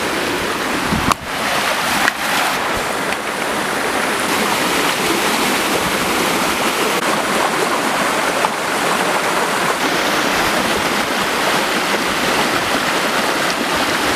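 A small creek cascade rushing steadily over rocks close by, with a couple of brief knocks about one and two seconds in.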